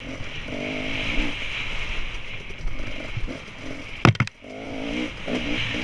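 Dirt bike engine revving up and down as it is ridden over rough dirt trail. There is a steady rush of wind and a few loud knocks about four seconds in.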